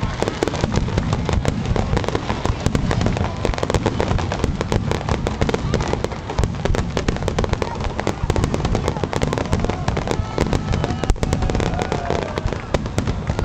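Fireworks going off in quick succession: a dense, continuous crackle of many small sharp pops over a steady low booming.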